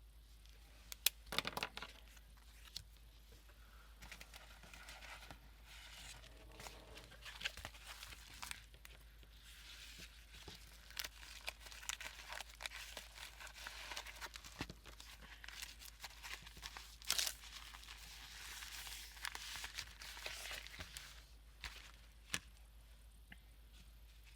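Paper being handled at a work table: rustling and crinkling, with scattered taps and clicks and a few sharper snaps.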